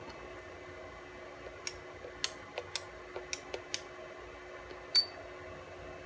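About eight quick, irregular clicks of keys being pressed on the G-Drive controller's keypad, entering the memkey offset value. About five seconds in, a short high beep sounds from the controller as it accepts the entry and writes it to flash.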